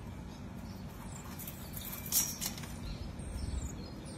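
Faint, very high-pitched short chirps and squeaks from a small animal or bird, with one sharper, louder chirp about two seconds in.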